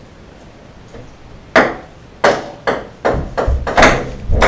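Ping-pong ball bouncing on a wooden tabletop: a run of sharp clicks starting about a second and a half in and coming quicker toward the end, with a few low thuds among the last ones.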